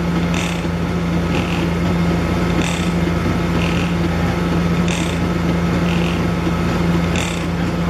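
Concrete pump running steadily on its diesel engine, with a short, regular stroke sound about once a second as it pushes concrete through the hose.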